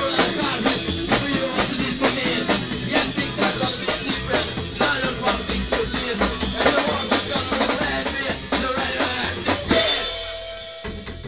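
Psychobilly band playing live: a fast drum-kit beat with upright double bass and a singer. The song ends about ten seconds in, and a last note rings on and fades.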